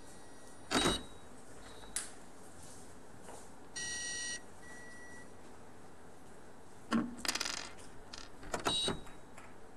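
Billiard balls clicking sharply as a shot is played, a hard click just under a second in and another at about two seconds. About four seconds in, an electronic scoreboard gives a short steady beep as the points are entered, followed by a fainter brief tone. Near the end come several more knocks and clatter.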